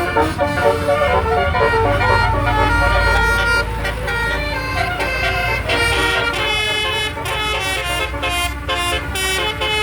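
Basuri "telolet" multi-tone bus air horn playing a melody, its horn notes switching quickly and often sounding several at once. A low rumble sits under the first few seconds.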